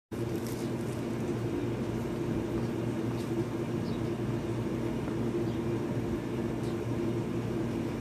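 A steady low hum from a running machine such as a fan or motor, with a few faint clicks.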